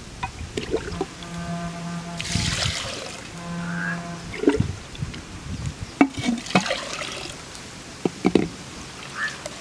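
Water splashing and trickling as a hand dips and scoops in a water-filled clay pot, in irregular sloshes. A low steady humming tone is held twice for about a second each in the first half.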